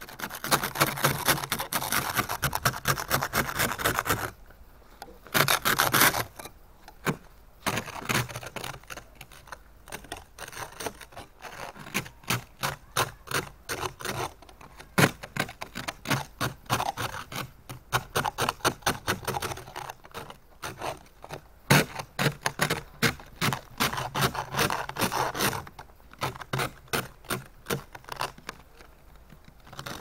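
Hand ice scraper on a snow brush scraping a glaze of frozen ice off a car's side window and windshield glass. It starts as one long continuous scrape of about four seconds, then goes on as many short strokes, a few a second, and eases off near the end.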